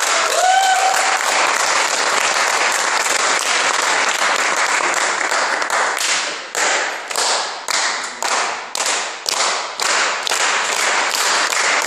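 Audience applauding, with a brief shout about half a second in. After about six seconds the clapping falls into rhythmic clapping in unison, about two claps a second.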